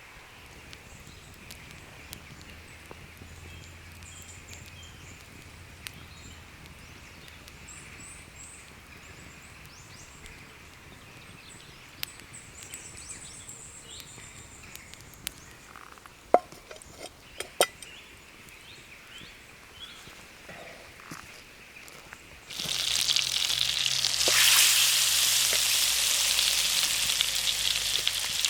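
Wood campfire crackling: sparse clicks and a few sharp pops over a quiet background, then about three-quarters of the way through it turns suddenly into a loud, dense crackle and hiss.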